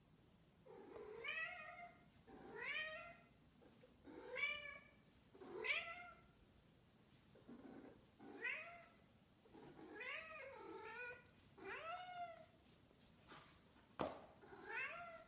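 Snowshoe cat meowing over and over, about ten meows, each rising then falling in pitch. A single sharp click comes near the end.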